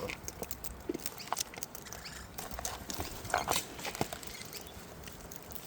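Irregular clicks and taps of wild cockatoos feeding on seed, beaks pecking and cracking husks, with a sharp tap about four seconds in.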